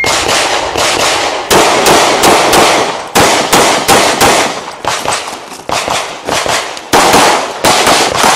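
Pistol fired rapidly, several shots a second in quick strings with short pauses between them as the shooter moves between targets.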